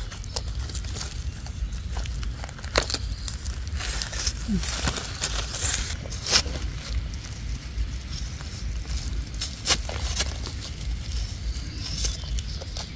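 Dry leaf litter and twigs crackling and rustling, with scattered sharp snaps, as someone moves through the forest floor.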